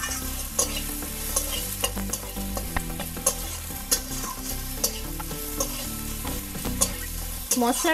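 Metal spatula stirring and scraping an onion-tomato masala frying in oil in a metal kadai. The sizzle runs steadily under irregular clicks and scrapes of the spatula against the pan.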